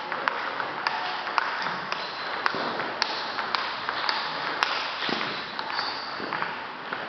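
Celluloid-type table tennis ball ticking against the table and the rubber bats in a rally, with a series of short, sharp clicks at an uneven pace over steady hall noise.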